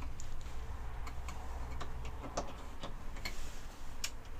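Small irregular clicks and taps of cables, clips and multimeter probes being handled at a leisure battery's terminals, one sharper click near the end.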